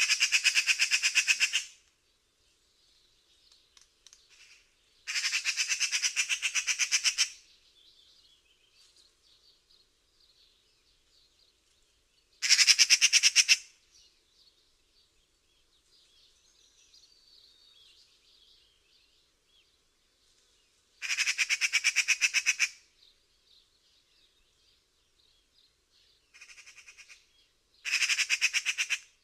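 Magpie giving its chattering call: six bursts of rapid, harsh rattling notes, each lasting one and a half to two seconds and spaced several seconds apart, the fifth shorter and quieter. Faint birdsong fills the gaps between bursts.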